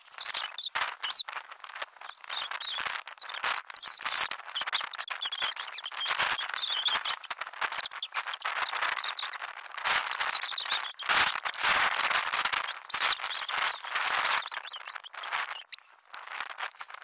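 Tap water splashing into an aluminium bowl and hands working raw chicken pieces in it, with intermittent clatter from the bowl. Background music plays over it.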